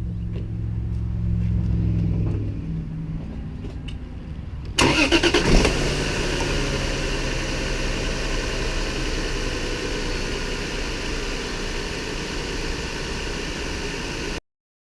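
2003 Lexus IS300's 2JZ-GE inline-six engine running. A steady low hum is heard for the first couple of seconds. About five seconds in, a sudden much louder, fuller engine sound starts, rises and falls briefly in pitch, then holds steady until it cuts off just before the end.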